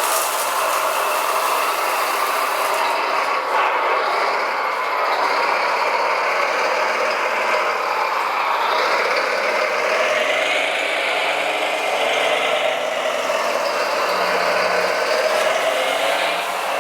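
Whining electric motors and gearboxes of radio-controlled model construction machines, the pitch rising and falling as they speed up and slow down.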